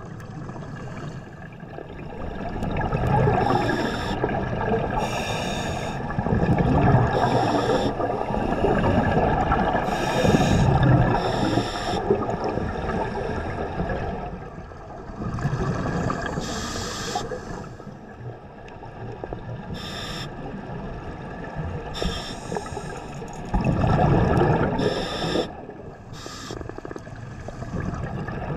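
Scuba diver breathing through a regulator underwater: drawn-out breaths with gurgling bursts of exhaled bubbles every couple of seconds.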